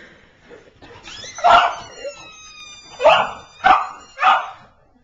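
Dog barking four loud times, with a thin, high, steady tone falling slightly in pitch between the first and second bark.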